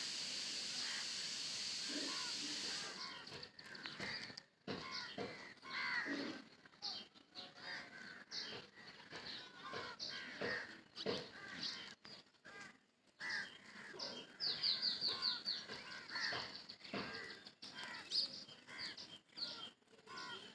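Birds calling and chirping outdoors, with a quick run of high, falling chirps about two-thirds of the way in. A steady hiss fills the first three seconds and cuts off suddenly.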